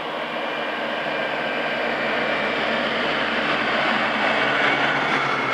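Steyr tractor towing a flatbed trailer on the road, its diesel engine and tyres drawing steadily louder as it approaches, with a high whine running over the engine noise.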